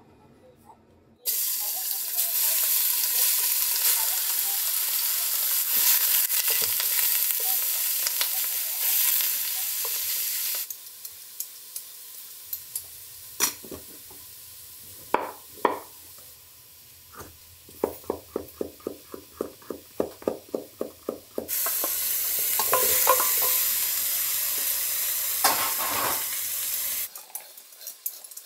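Pork frying in oil in a stainless steel pot, a loud steady sizzle that starts about a second in. It gives way to a kitchen knife cutting carrots on a wooden chopping board, a quick run of chops about three or four a second, before the pot sizzles loudly again near the end.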